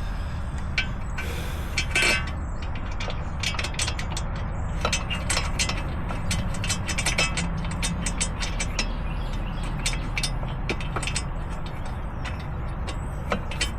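Hand tools clicking and clinking against metal while the front brake caliper bolts are fitted: a string of short, sharp metallic clicks, thickest through the middle and later part, over a steady low rumble.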